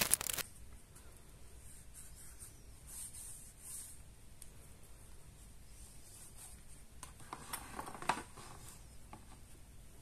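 Plastic packaging crinkling briefly at the start, then faint rubbing and handling of hard plastic motorcycle mirrors. The mirrors are set down on a wooden surface with a few light taps and one sharper knock about eight seconds in.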